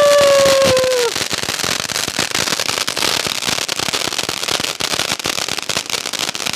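"Rock tail" fancy firecracker going off: a loud whistle that drops in pitch and cuts out about a second in, followed by dense, continuous crackling.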